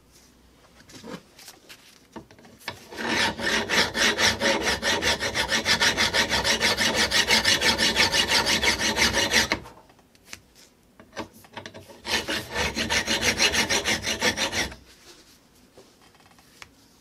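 Hand file rasping back and forth across the steel teeth of a pipe wrench jaw held in a bench vise, sharpening teeth that have worn round. Two runs of quick, even strokes: a long one of about six seconds, then a shorter one of about three seconds after a brief pause.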